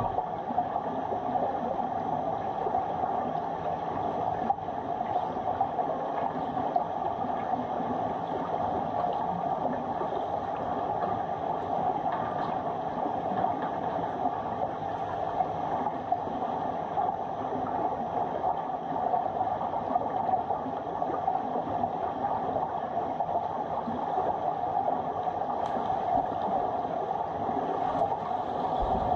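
Steady underwater ambience of a swimming pool picked up by a submerged camera: an even rushing noise with small crackles throughout.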